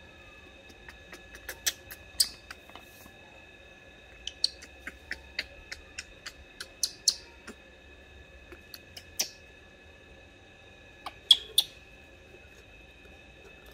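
Irregular light clicks and taps, scattered through, with two sharper ones about eleven seconds in, over faint steady high-pitched tones: small handling noises around a baby macaque being bottle-fed.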